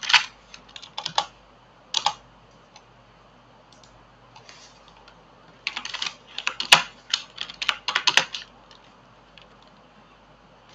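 Computer keyboard keys tapped in short bursts of typing, with a pause of a few seconds, then a denser run of keystrokes from about six to eight seconds in.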